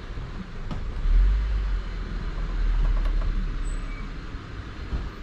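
Holden Adventra AWD wagon crawling slowly over a rough 4WD track: a low engine rumble that swells twice, with a few light knocks from the car.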